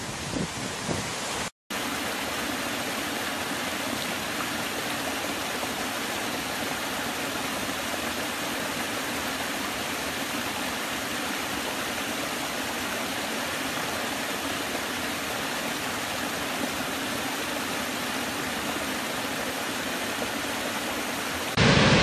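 Small woodland cascade spilling over mossy rock steps: a steady, even rush of falling water. It starts after a brief moment of silence, following a second of louder, gusty water and wind. Near the end it gives way to the louder, deeper rush of a large waterfall.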